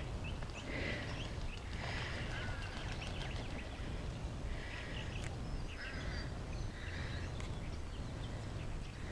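A duck quacking, a series of short calls spaced about a second apart, over a low steady background rumble.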